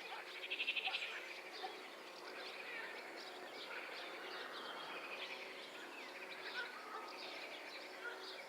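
Small songbirds chirping and trilling together. A fast, rapidly pulsing trill about a second in is the loudest call, with many shorter chirps throughout.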